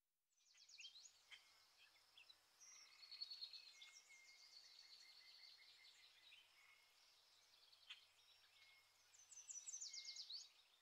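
Faint birdsong: several small birds chirping and trilling, with quick runs of repeated high notes.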